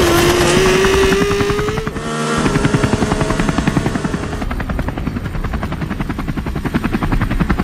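Motor sound effect: a single tone rising slowly for about two seconds, then, after a brief drop, a fast, even mechanical chopping.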